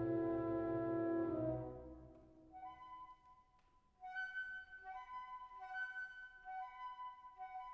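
Background music: a held chord fades out about two seconds in, then a soft melody of sustained notes alternates between two pitches.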